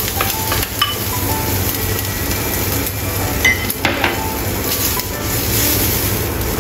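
Dried shredded squid and chopped ginger sizzling in hot oil in a wok. A wooden spatula knocks a few times against the pan about halfway through and stirs near the end.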